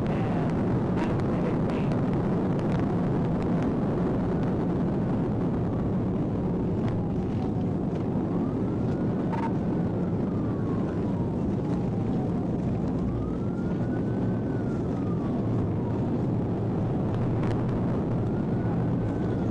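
Police cruiser at over 100 mph: steady, loud road, wind and engine noise. The cruiser's own wail siren, muffled, rises and falls slowly in long sweeps, about one every five seconds.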